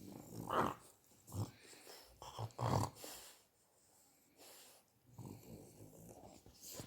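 French bulldog snoring: snorting, wheezy breaths in irregular bursts. The loudest are in the first three seconds, then a brief pause, then softer ones.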